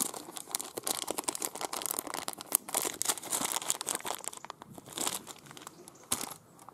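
Packaging crinkling and rustling as it is handled and opened, dense for the first four seconds or so, then in sparser bursts.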